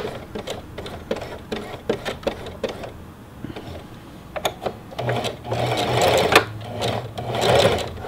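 Singer Heavy Duty Classic sewing machine test-stitching through fabric after its hook and needle timing were reset. It clicks along at about three or four stitches a second, then about five seconds in speeds up and runs louder, with a steady motor hum under the stitching.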